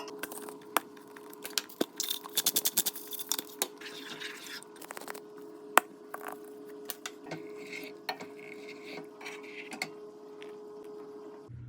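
Kitchen utensils clinking and tapping against dishes and pots, with a quick run of clicks about two seconds in, over a steady hum.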